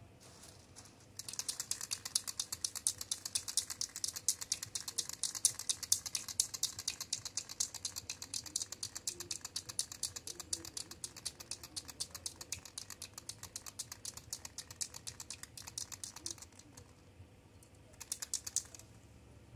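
Aerosol spray paint can being shaken hard, its mixing ball rattling in a fast, even clicking for about fifteen seconds, then a short second burst of shaking near the end.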